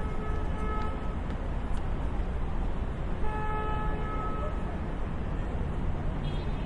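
City street traffic with a steady low rumble, and a car horn sounding twice: once ending about a second in, then again about three seconds in for just over a second.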